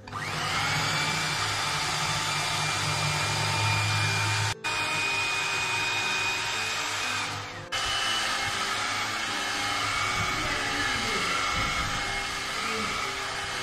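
Electric mixer beating butter cake batter: a steady motor whine that starts suddenly, with a brief break about halfway through.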